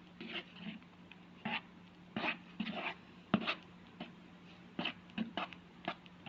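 Sticky squelching and smacking of a glue and shaving-cream slime mixture being stirred, in irregular short bursts, over a faint steady low hum.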